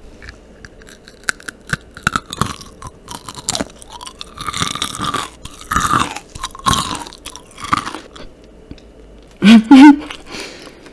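Close-miked crunching and chewing of kohakutou, a Japanese agar jelly candy with a crisp sugar crust, with many small crackles and wet chews. Near the end a short, loud laugh into the microphone is the loudest sound.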